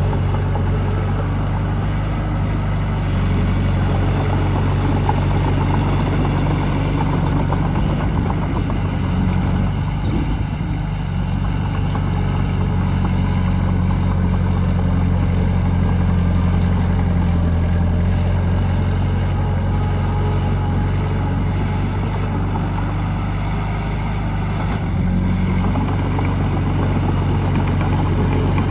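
Diesel engine of a heavy earthmoving machine running steadily at a low, even pitch, which shifts slightly up and down a few times.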